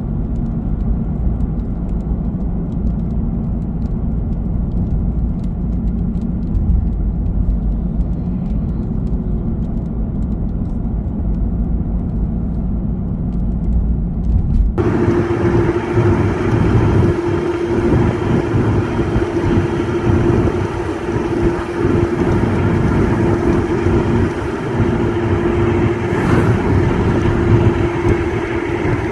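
Car driving along a road, heard as a steady deep rumble of road and engine noise. About halfway through it changes abruptly to a brighter, rougher road noise with a steady hum running through it.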